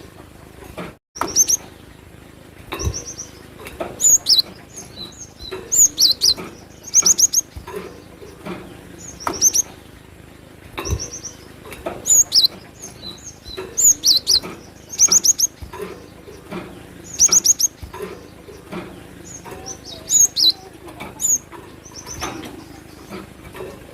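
Glatik batu (cinereous tit) singing: clusters of two to four high, sharp notes, repeated every second or two.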